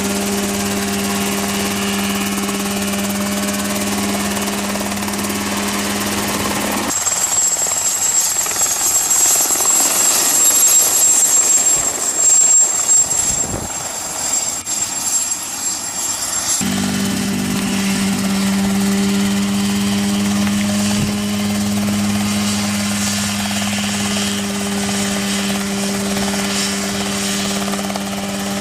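Ultralight helicopter running: a steady engine and rotor drone that changes abruptly about seven seconds in to a noisier stretch with a high whine, then switches back to a steady drone a little past halfway.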